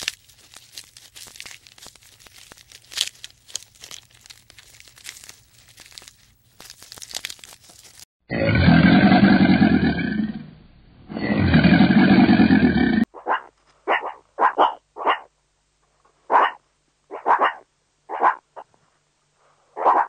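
Faint scattered clicks and rustles, then a crocodile giving two long, loud, low calls, then about a dozen short, sharp barks from a meerkat.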